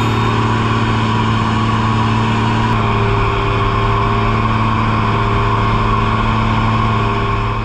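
A boat's engine running steadily at an even speed, with a low, constant hum, easing off right at the end.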